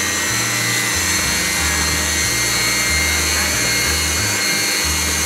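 Electric hand mixer running at a steady speed, its beaters churning flour, oil and liquid for bun dough in a plastic bowl: a steady whirr with a high whine.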